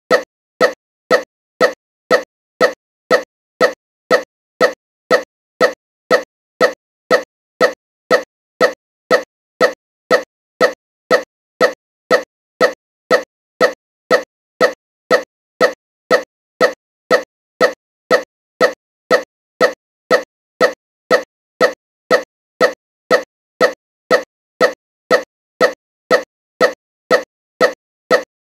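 A short pop repeating at a perfectly even pace, about twice a second, each one identical to the last.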